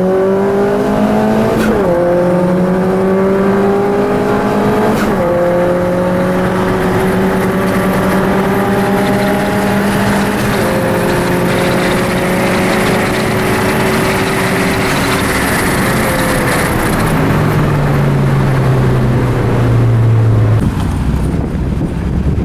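Car engine accelerating hard through the gears, its note climbing in each gear and dropping at three upshifts, about two, five and eleven seconds in. From about sixteen seconds in the note falls as the car lifts off and slows, and near the end it cuts off into steady wind-like noise.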